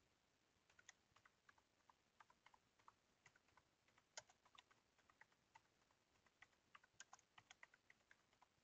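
Faint typing on a computer keyboard: a quick, irregular run of key clicks that begins under a second in and carries on nearly to the end.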